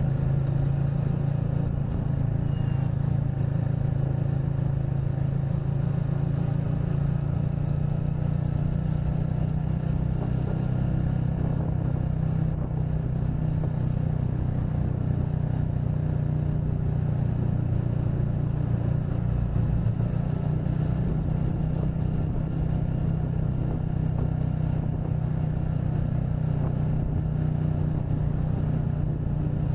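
Motorcycle engine running at a steady, even pitch while riding along, with road noise underneath.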